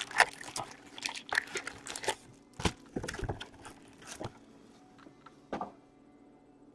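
A box of hockey card packs being opened by hand: cardboard and plastic wrapping crinkling and rustling in short crackly bursts as the packs are pulled out and set down. This goes on for about four seconds, with one more rustle about five and a half seconds in.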